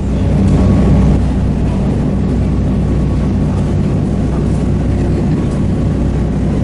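A ferry's engines running with a steady, low, even drone.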